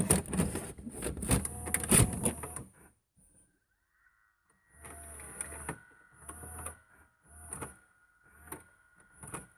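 Machinery sound effect: about three seconds of dense mechanical clanking and knocking, then after a short pause a run of repeating strokes, each a low thump with a hiss. The strokes come quicker and weaker, over a faint steady whine.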